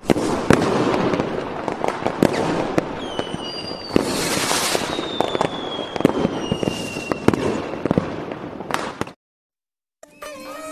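Fireworks: a dense crackle of bursts and sharp bangs, with whistling tones gliding down in pitch from about three seconds in. It cuts off about nine seconds in, and music begins near the end.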